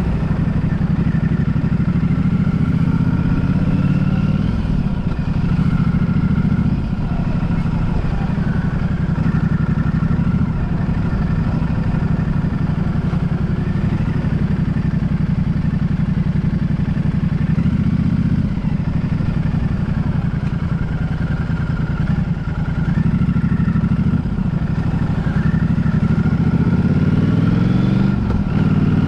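Vehicle engine running continuously while under way, its pitch rising and falling as the engine speed changes, with a brief dip about two-thirds through and another near the end.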